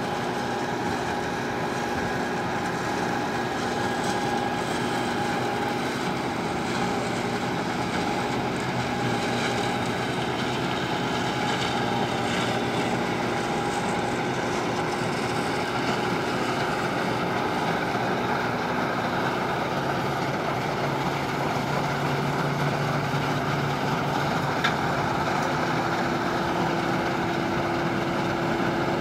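Laverda 1740 AL combine harvester running steadily while threshing alfalfa for seed: the engine and threshing machinery run together as an even noise with several steady whining tones.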